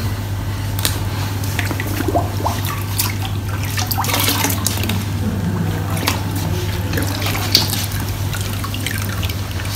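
Plaster of Paris splint slab being dunked and worked in a bucket of water, splashing, then dripping as it is lifted out near the end. A steady low hum runs underneath.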